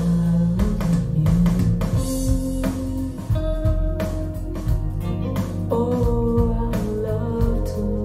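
A rock track with electric guitar and singing, played back through Wharfedale Diamond 240 loudspeakers and picked up by a microphone in the room.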